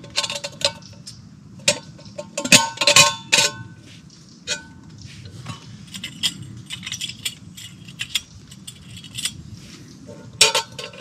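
Metal camping cookware being handled: a small pot and its lid clink and clank against each other and against the gas stove. The strikes ring briefly, with a dense flurry about two to three and a half seconds in and another near the end.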